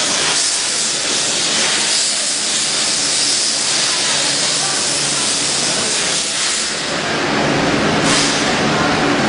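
Steady hissing factory-floor noise from production-line machinery, with a low machine hum underneath that grows stronger near the end.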